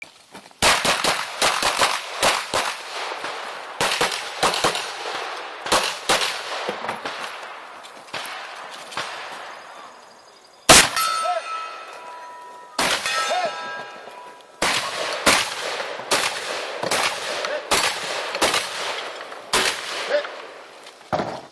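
Rapid strings of gunshots from shotgun, rifle and handgun in a 3-gun stage, with steel targets clanging and ringing after hits. The shots come in quick bursts. A short pause a little past halfway leaves a steel plate's ring hanging, then the firing picks up again.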